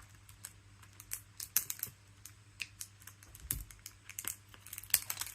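Scattered light clicks and crackles of hands handling and starting to open a giant Easter egg's packaging, getting busier near the end.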